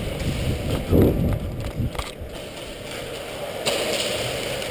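Running footsteps and rattling gear on a concrete floor, heard through a body-worn action camera, with irregular low thumps that are loudest about a second in.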